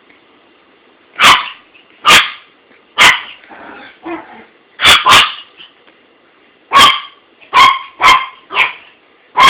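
A dog barking at a toy: about ten short barks starting a second in, in uneven groups, with a quick double bark near the middle and fainter sounds between the barks.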